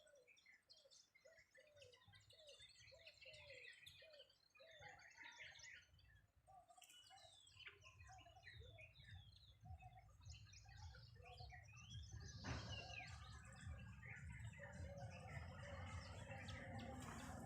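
Several birds chirping and calling, with a run of low, evenly repeated notes, about three a second, in the first few seconds. A faint low rumble builds up under the birdsong in the second half.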